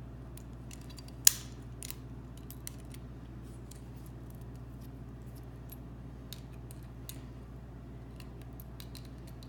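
Small metallic clicks and ticks from a hollow-wall anchor being fitted onto a Rapid Anchor setting tool, with one sharp click about a second in, over a steady low hum.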